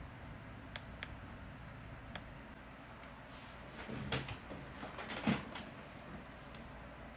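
A few light clicks, then a cluster of louder knocks and taps about four to five and a half seconds in, over a steady hiss.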